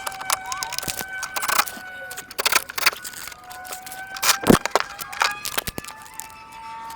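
Irregular clicks, clinks and knocks of hand and tool work on car parts, the loudest knock about four and a half seconds in, over a faint steady tone.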